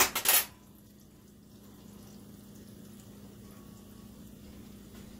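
A fried apple turnover of biscuit dough cooking in oil in a stainless skillet, with a faint, steady sizzle; the oil has been taken off the heat so it is not too hot. A brief loud burst of noise comes at the very start.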